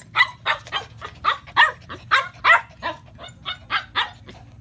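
A puppy barking in a rapid string of short yaps, about three a second, each dropping slightly in pitch.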